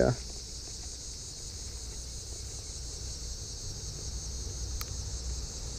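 A steady, high-pitched chorus of crickets chirping, with a low rumble underneath.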